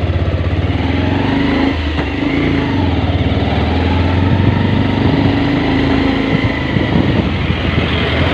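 Motorcycle engine running steadily while it is ridden along the road.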